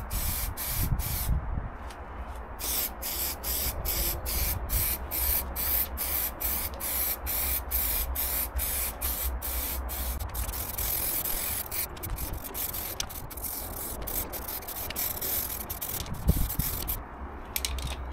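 Aerosol spray paint can hissing in quick short bursts, about three a second, with a brief pause near the start and one longer steady spray about eleven seconds in.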